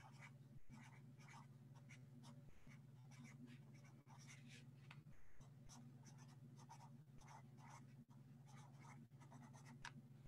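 Faint scratching of a pen writing on paper, in many short irregular strokes, over a steady low hum.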